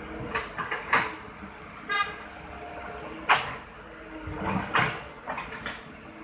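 Sharp knocks and clacks of toy vehicles being handled and bumped together, the loudest about three seconds in, with one short horn-like beep about two seconds in.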